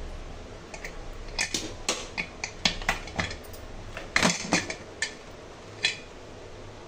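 Metal clicks and clanks from an aluminium pressure cooker as its whistle weight is handled with steel tongs and the lid is worked off, a scattered run of sharp knocks with the loudest clank about four seconds in.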